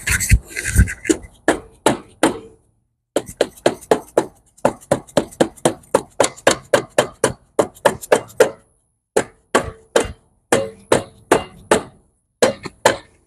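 Repeated hammer blows, about three a second in runs with short pauses, on the brake cover of a 2002 Honda Foreman TRX400 ATV, knocking the stuck cover loose.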